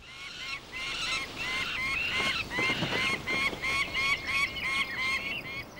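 Fledgling peregrine falcons calling impatiently for food: a rapid run of short, harsh, repeated calls, about three a second.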